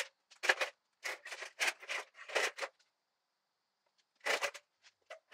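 Short scraping and rubbing noises as a hanging 2JZ engine, with its transmission attached, is pushed and settled onto sawhorses. About eight quick scrapes come in the first three seconds, then a few more after a pause near the end.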